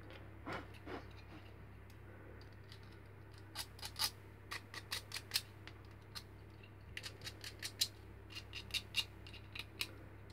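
Snap-off utility knife blade scraping and shaving the sawn edge of a hard plastic airsoft magazine to smooth it: short scratchy strokes in quick clusters with pauses between them.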